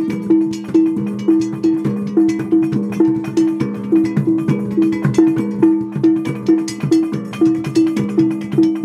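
Percussion music with a fast, even beat: pitched, ringing metallic strikes repeat about three times a second over a steady lower ringing tone, with sharp clicks on the beat.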